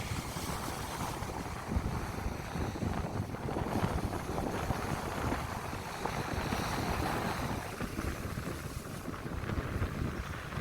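Sea surf washing onto a beach, with wind buffeting the microphone as a fluttering low rumble.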